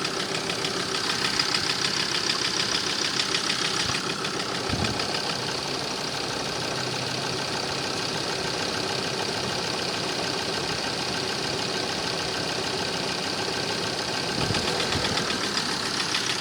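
Ford Transit engine idling with a rhythmic knock. The owner traces the knock to cylinder three, since it fades when that cylinder is cut out, and suspects a failed injector that may be pouring fuel and detonating. The sound gets quieter about four seconds in and louder again near the end.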